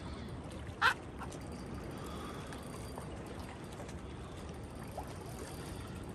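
Steady wash of wind and water lapping against jetty rocks, with one short, sharp click about a second in.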